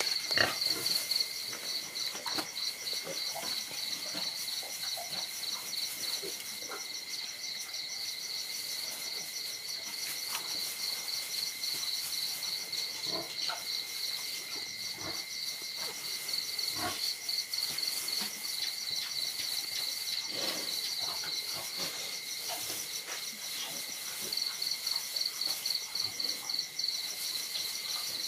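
Crickets chirping steadily in fast, even pulses, over a lower steady insect tone. Scattered soft taps and scuffs come from puppies and a kitten playing on a dirt floor.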